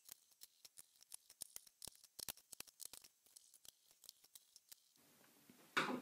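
Small screwdriver driving screws into a laptop's plastic bottom case: a run of faint, irregular ticks and clicks. A short, louder rustle comes near the end.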